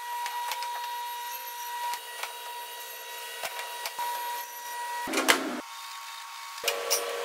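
Table saw running with a steady whine and scattered ticks as boards are fed across it. The sound breaks off abruptly about five seconds in and comes back near the end.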